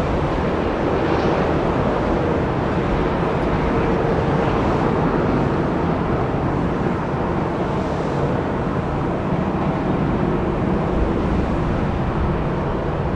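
Jet engines of an Airbus A320 on final approach to landing, a steady, even noise.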